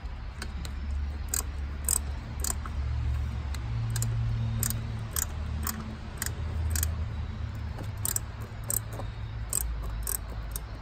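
Insects chirping in a steady run of short, high clicks, about two a second, over a low rumble.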